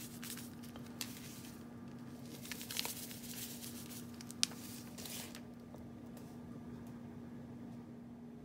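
Salt being poured from a box onto pieces of raw trout in a pan: a faint pattering hiss with a few light ticks, dying away about five seconds in. A steady low hum sits underneath throughout.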